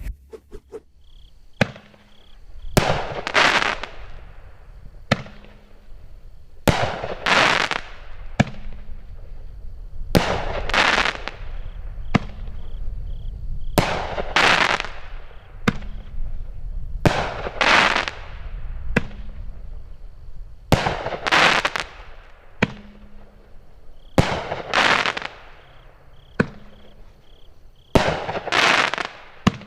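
Multi-shot firework cake firing shot after shot. Each sharp launch is followed about a second later by a bursting shell with a long crackle, repeating roughly every three to four seconds.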